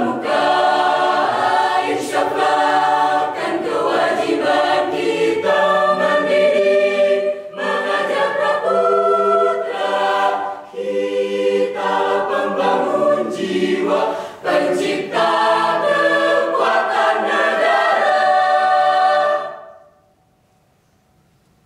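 Mixed choir of men and women singing a cappella in several voice parts, in phrases with short breaks between them. The singing ends on a final chord about two seconds before the end, dying away quickly in the hall.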